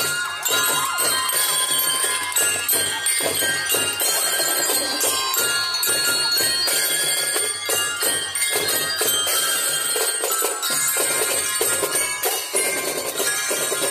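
Drum and lyre corps playing: many bell lyres ring out a melody together over a steady beat of drums.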